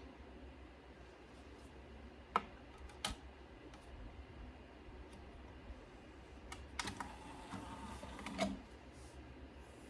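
A few sharp, separate clicks and taps, with a small cluster about two-thirds of the way through, over a low steady hum.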